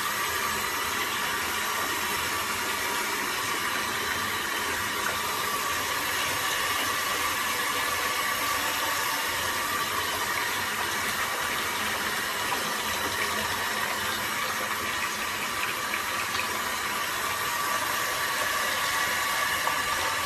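Steady hiss of water running into a bathtub, with a faint steady whistle over it.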